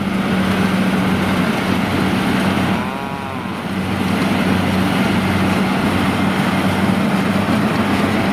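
Kubota DC-70G rice combine harvester's diesel engine running steadily with a low hum as the machine cuts and threshes rice in a soft paddy.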